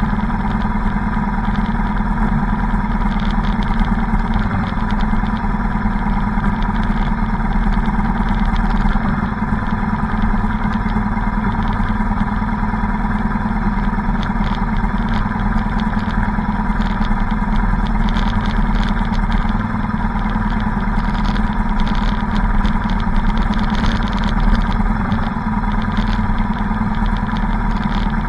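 Motorcycle engine running steadily at low speed, heard from a camera mounted on the bike, with other motorcycles riding close ahead in a column.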